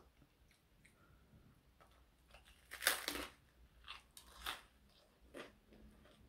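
Close-up chewing of a crusty bread sandwich: a few crisp crunches, the loudest about three seconds in, then softer ones.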